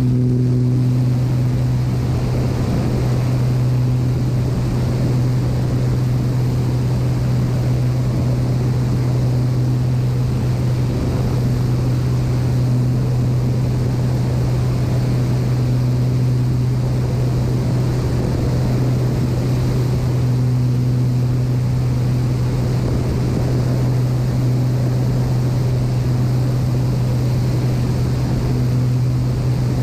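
Agricultural spray aircraft's engine and propeller running in a steady, unbroken drone in level low-altitude flight, with wind noise rushing over the cowling-mounted microphone.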